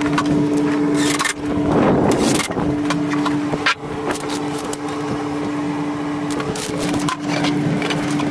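A long wooden board being handled and set down, knocking and scraping several times, over a steady low hum that cuts out briefly now and then.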